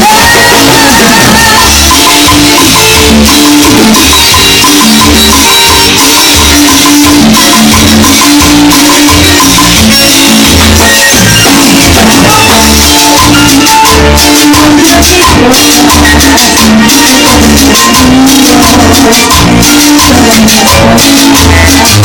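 Loud Latin dance music with a steady beat, marimba-like melody and shaken maracas.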